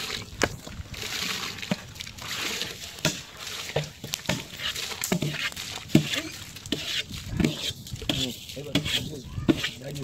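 Washed rice being tipped from a large aluminium bowl into a pot of boiling water, splashing and sloshing, with repeated clinks and knocks as a long metal ladle scrapes the rice out against the bowl and pot rim. Voices talk in the background, mostly in the second half.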